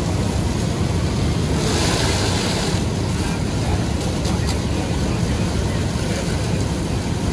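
Steady low rumble of fire apparatus engines running, with a burst of hissing for about a second, roughly two seconds in.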